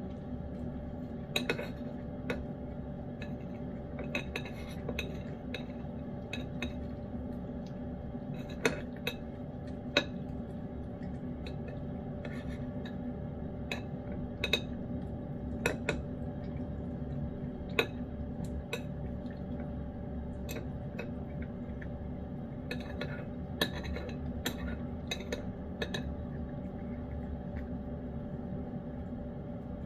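Lynx point cat eating wet food in gravy from a dish: irregular sharp clinks and taps as its teeth and tongue knock against the bowl, over a steady low hum.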